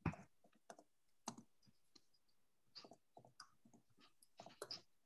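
Faint, irregular clicks of a computer keyboard being typed on.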